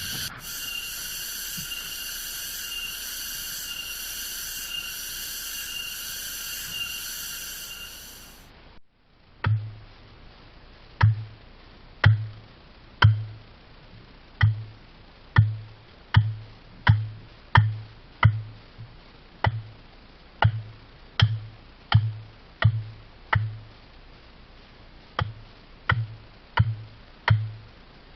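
A steady, pulsing insect drone of the kind cicadas make in forest. After a cut, a long run of heavy single blows about once a second, each a sharp crack with a dull thud, typical of chopping wood with a blade.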